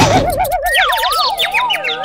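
Cartoon-style sound effects over music: a fast-wobbling, boing-like tone for just under a second, then a wavering tone that slides downward while short rising chirps sound above it.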